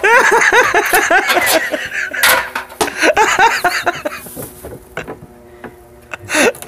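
A man laughing hard in quick repeated bursts, pausing briefly about two seconds in and again after four seconds, with a sharp click about two seconds in.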